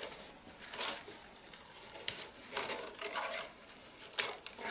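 Leather tabla strap (badhi) being pulled by hand through the lacing holes, giving several short rubbing, rasping pulls.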